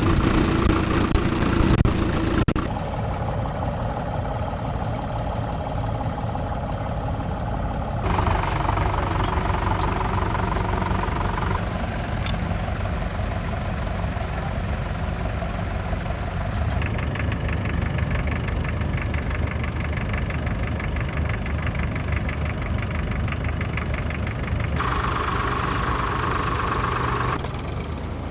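Tractor engines running, the sound changing abruptly every few seconds from one engine to another.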